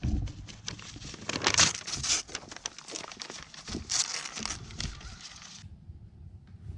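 Sheet of paper crinkling and tearing as a goat grabs it in its mouth and chews at it, in irregular flurries that cut off suddenly near the end.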